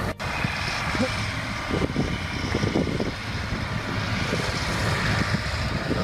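Motor grader's diesel engine running steadily, a continuous low hum, with a brief drop-out just after the start.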